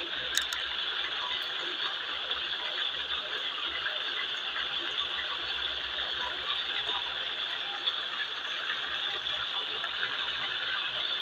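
Marinated chicken pieces frying in shallow oil in a wok: a steady, dense sizzle and crackle of bubbling oil, with a few sharper pops.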